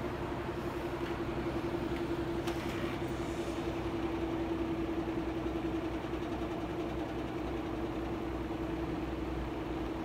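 General Electric F12W14 three-speed reversible box fan running after a full motor overhaul and oiling: a steady rush of air with a steady hum under it. It has just been switched from high to low and is still coasting down in speed.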